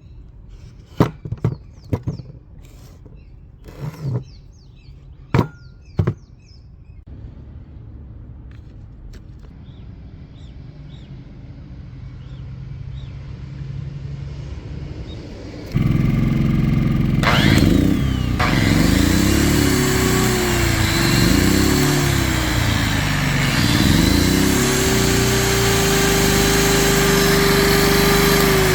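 Makita GA7021 angle grinder being reassembled, with a few sharp clicks and knocks, then test-run on fresh CB-204 brushes: about halfway in the motor starts with a loud whir, its pitch rising and falling several times as it spins up and slows, then running at a steady pitch near the end.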